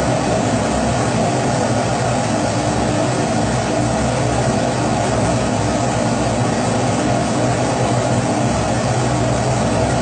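Kerosene pressure stove (babour, Primus-type) burner burning steadily: a constant rushing noise with a low hum underneath.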